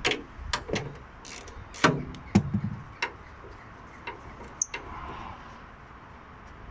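Hand ratchet clicking in short, irregular bursts and knocks while undoing a bonnet hinge bolt.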